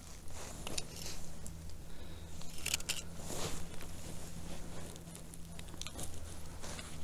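Faint rustling and scattered small clicks of hands handling things close to the microphone, over a faint steady low hum.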